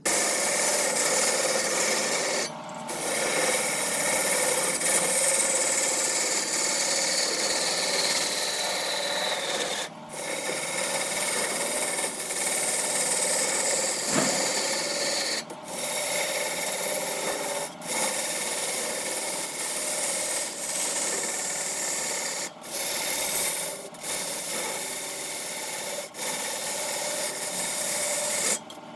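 Wood being shaped on a spinning wood lathe: a steady scraping rasp, broken by short pauses every few seconds, with a faint whine falling in pitch during the first third.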